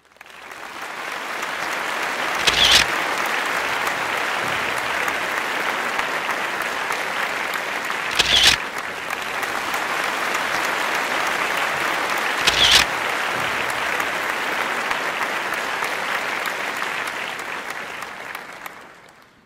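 A crowd applauding steadily, the clapping fading in at the start and fading out near the end, with three louder sharp accents standing out a few seconds apart.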